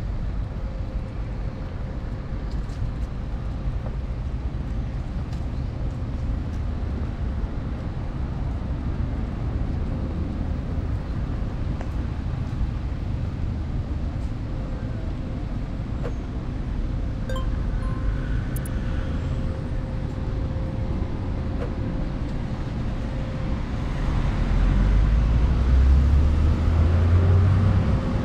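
Steady city road-traffic noise, a low rumble that grows louder about four seconds before the end.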